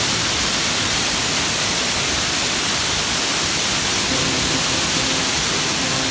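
Waterfall water rushing in a steady, loud hiss as it pours down a tiered cascade.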